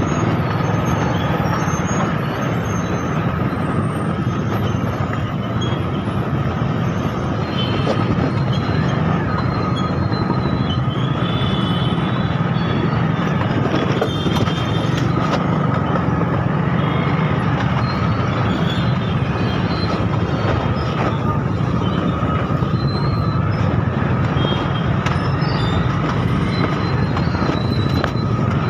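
Motorcycle engine and the surrounding city traffic running steadily, with a steady high whine throughout and short high beeps now and then.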